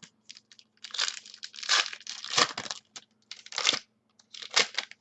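Foil trading-card pack wrapper being torn open and crinkled by hand, in a series of short crackling bursts.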